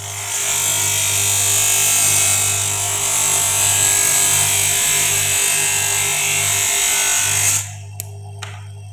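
A plastic (CR) spectacle lens held by hand against the spinning wheel of a small bench lens-edging motor: a steady high grinding hiss over the motor's low hum, as the lens edge is ground down to fit the frame. The grinding stops about seven and a half seconds in, followed by two light clicks.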